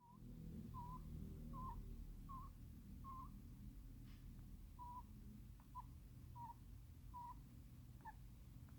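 A sleeping hamster snoring: about ten short, faint, whistling squeaks, one every three-quarters of a second, with a pause in the middle.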